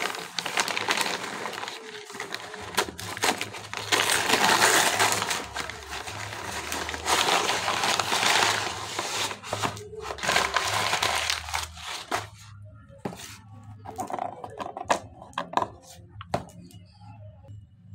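Kraft-paper mailer bag crinkling and crumpling as it is pulled off a cardboard box, in loud stretches of rustling. After about 12 s it thins to scattered taps and scrapes as the bare cardboard box is handled.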